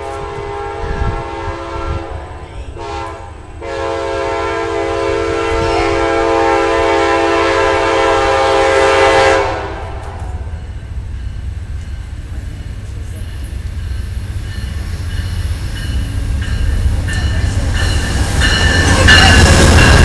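Amtrak GE Genesis P42 diesel locomotive's air horn sounding several blasts, then one long loud chord that cuts off sharply about nine and a half seconds in. Then the rumble of the approaching train's engines and wheels builds steadily and is loudest at the end, as the locomotives come alongside.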